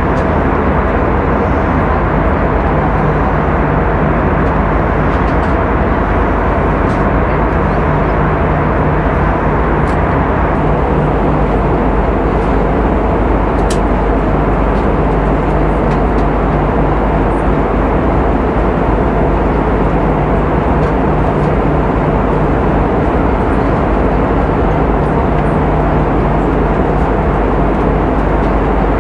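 Airbus A320 cabin noise in cruise flight, heard at a window seat beside the engine: a steady, even rushing with a low hum beneath it.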